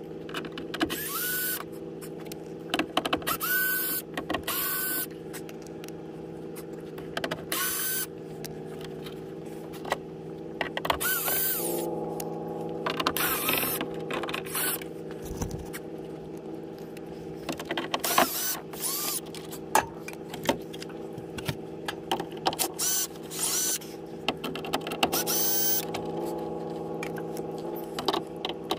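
Cordless drill-driver backing out the T30 Torx screws of a truck door panel: short whirring bursts every few seconds, each rising and falling in pitch as the motor spins up and stops, over a steady low hum.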